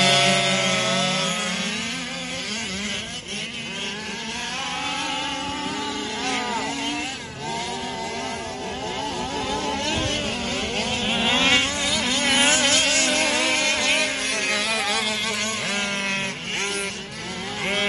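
Several radio-controlled cars' small-bore two-stroke engines running together, each whining up and down in pitch as they rev and ease off. The whine grows louder and higher from about eleven seconds in.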